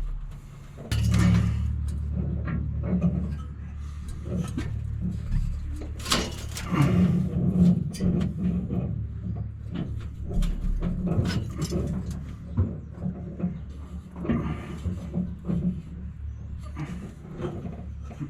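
Clanks and knocks of hand work on a combine, scattered and irregular, over a steady low hum that starts about a second in.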